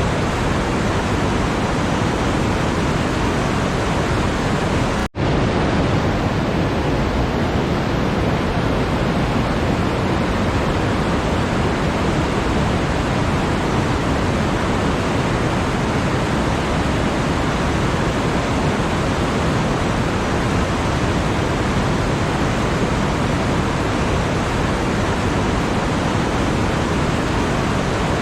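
Steady, even rushing noise with no rhythm or tones, briefly cutting out for a split second about five seconds in.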